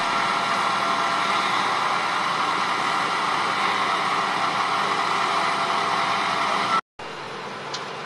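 Heavy tow truck's engine idling steadily close by. It stops abruptly about seven seconds in, leaving a quieter steady background.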